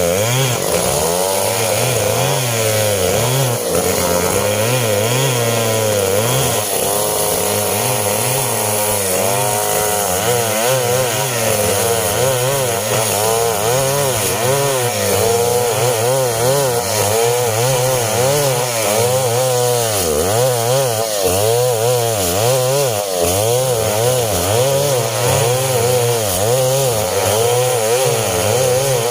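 STIHL chainsaw running and cutting through coconut-palm wood, its engine pitch rising and falling over and over as it bogs under load and picks up again.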